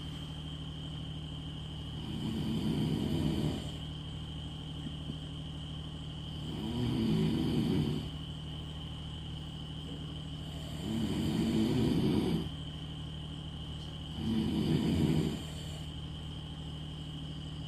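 Snoring in deep sleep: a rough, low snore about every four seconds, four in all, each lasting a second or so. A steady high-pitched tone runs underneath.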